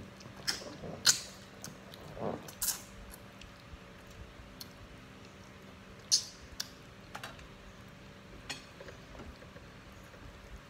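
Close-up eating sounds of a person eating fish with his fingers: scattered wet mouth smacks and sucking clicks, the sharpest about a second in and about six seconds in.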